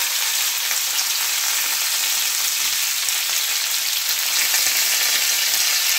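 Flour-coated pollock pieces sizzling steadily in hot oil in a frying pan, with faint ticks of a silicone spatula as the pieces are turned over.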